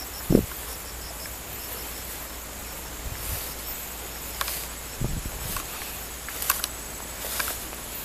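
Insects chirping over a steady high hiss, one of them giving a quick, regular high pulse that fades after about two seconds. A few dull thumps and light clicks from footsteps through the grass break in, the loudest just after the start.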